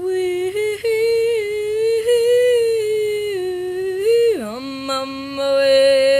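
One voice humming a slow tune unaccompanied, in long held notes, sliding down to a lower held note about four seconds in.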